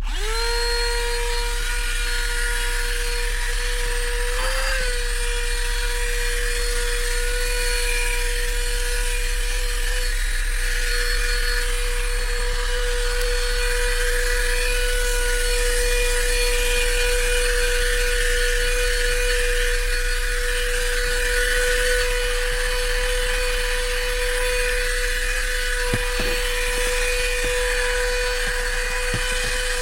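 GoMechanic Neutron 4500 12-volt handheld car vacuum cleaner switched on, its motor spinning up at once to a steady high whine with a rush of air as it vacuums dust. The pitch wobbles briefly about four seconds in, and there are a couple of light knocks near the end.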